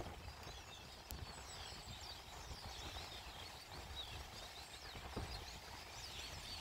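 Many small birds chirping and twittering in quick, overlapping calls, over a low wind rumble.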